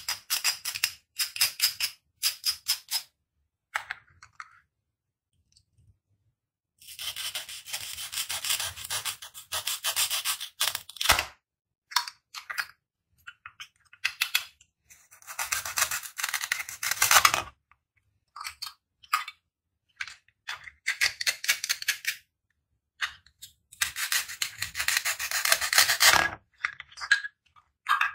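Plastic toy fruits and vegetables held together with velcro being cut apart with a plastic toy knife: the velcro rips with a rasping tear as the halves pull apart. There are three long rips of two to four seconds each, with short plastic clicks and taps between them.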